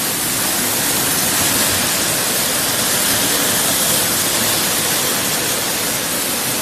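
A steady, loud rushing hiss of factory processing equipment running, even and unbroken.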